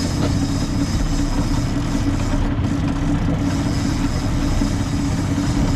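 Fishing boat's engine running steadily, with a constant rushing noise over it.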